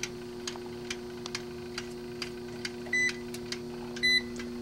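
Schumacher SE-2158 battery charger, energized: its mechanical timer ticks about twice a second over a steady transformer hum. Two short high beeps from a digital multimeter come about a second apart near the end.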